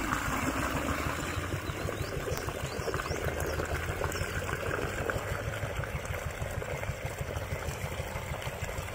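Water running steadily from a hose pipe into a burrow hole in the ground, over a low steady rumble.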